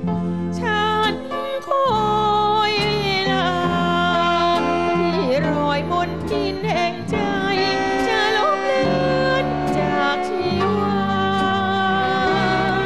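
A woman singing a Thai song with a band accompanying her; her long-held notes waver with vibrato over a steady low accompaniment.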